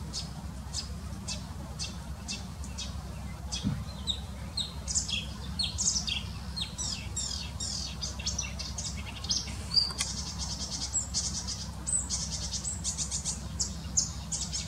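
Marsh warbler singing: a fast, varied stream of chirps, trills and whistles that is sparse at first and grows dense about four seconds in, with a buzzy trill in the second half.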